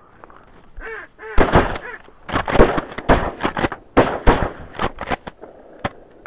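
Duck quacks in rapid, loud runs, coming in several bursts, with one sharp click near the end.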